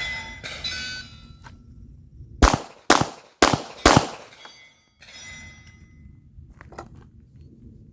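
A shot timer's start beep, then, about two and a half seconds in, four handgun shots roughly half a second apart: a draw and two rounds on each of two targets.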